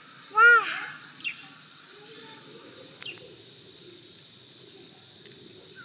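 Steady high-pitched insect chorus, with one brief, loud call rising and falling in pitch about half a second in, and a few light clicks later on.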